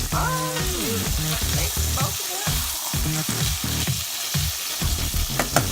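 Ribeye steaks sizzling steadily as they fry in a pot on the stove.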